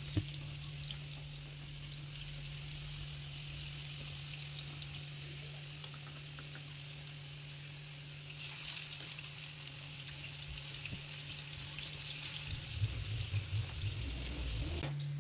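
Potato slices sizzling in hot oil in a grill pan. The sizzle grows louder about eight seconds in as more raw slices are laid into the pan, with a few light taps of a fork against the pan near the end.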